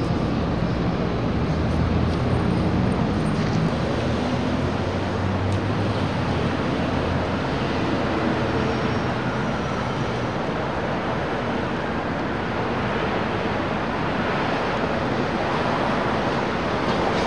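Steady city street traffic noise, with a low engine hum from a nearby vehicle that fades out about ten seconds in.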